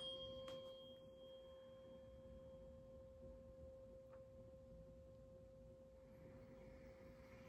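A tuning fork, just struck, rings one quiet, steady pure tone. A faint higher overtone dies away within the first couple of seconds while the main tone keeps sounding.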